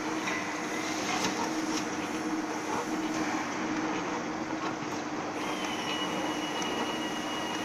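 Dough divider rounder machine running steadily, its motor and spiral rounding rollers giving a constant hum and rumble, with a few faint light clicks. A thin high whine joins about five seconds in.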